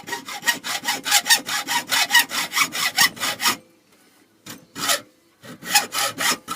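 Rapid back-and-forth rubbing or scraping strokes, about five a second, stopping after three and a half seconds, then two single strokes and a short last run near the end.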